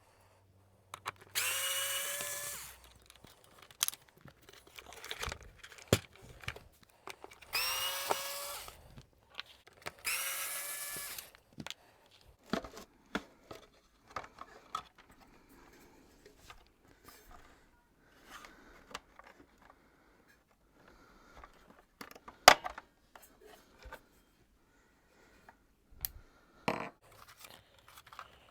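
Electric screwdriver run three times for about a second and a half each, its motor whine rising in pitch as it spins up, as screws are driven out of a vacuum cleaner's plastic casing. Scattered clicks and knocks of the parts being handled follow, the loudest a sharp knock about two-thirds of the way through.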